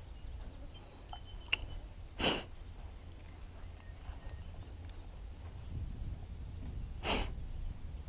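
Two short, sharp sniffs about five seconds apart, with a faint click shortly before the first, over a steady low rumble.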